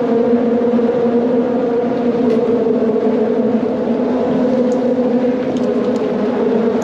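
Steady, loud mechanical drone holding one constant pitch with overtones, like an engine or a passing vehicle.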